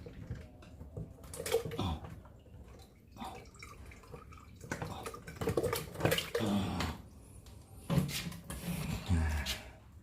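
Water splashing and dripping in a used plastic water jug as live catfish are put back in, in several separate bursts.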